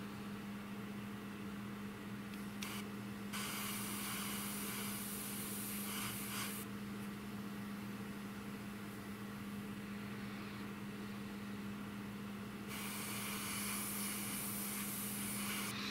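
Airbrush spraying paint in two hissing bursts of about three seconds each, one a few seconds in and one near the end, with a brief puff before the first. A steady low hum runs underneath.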